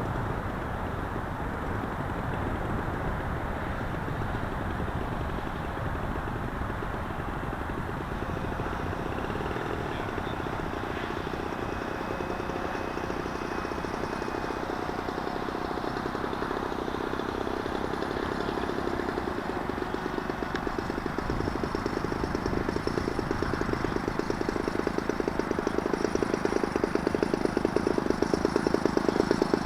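Sky Surfer Pro RC plane's electric motor and pusher propeller buzzing in flight over a steady rush of wind on the microphone. The buzz and a faint high whine grow louder over the last ten seconds or so.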